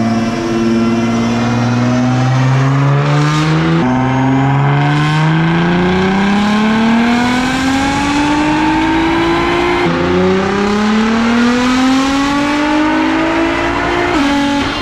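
Twin-turbo V6 of a 2017 Nissan GT-R R35 (stock engine and transmission, full bolt-ons) making a full-throttle pull on a chassis dyno. The revs climb through the gears, with upshifts about four and ten seconds in. The throttle lifts off near the end.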